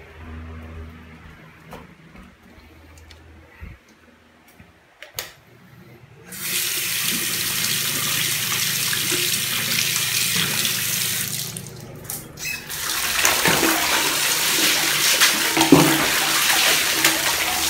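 Water tap running into a bathroom sink as a hand is rinsed under it. The water starts about six seconds in, eases off briefly around twelve seconds, then runs again, with a few faint clicks and knocks before it starts.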